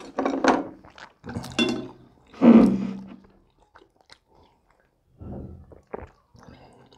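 A person chewing and biting food close to a clip-on microphone: a run of loud bites and chews over the first three seconds, loudest about two and a half seconds in, then quieter, sparser chewing.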